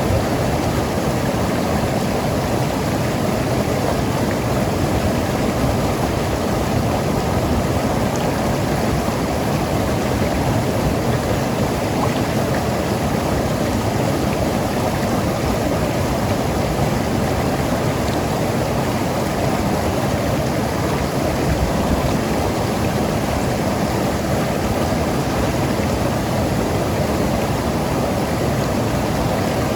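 Mountain river rushing and gurgling over rocks, a steady, even rush of water.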